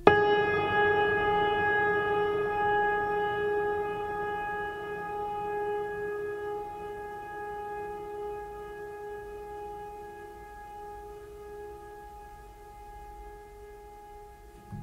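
Background music: one long held note with a stack of overtones starts suddenly and fades slowly, and the next note cuts in at the very end.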